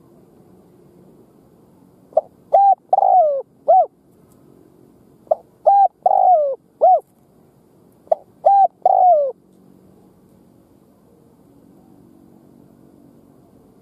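Spotted dove cooing: three phrases a few seconds apart, each of about four notes, the longest note sliding down in pitch.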